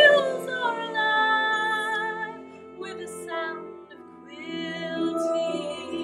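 Music: a woman singing long, held notes with vibrato over an accompaniment, easing off briefly about three seconds in before the next phrase comes in.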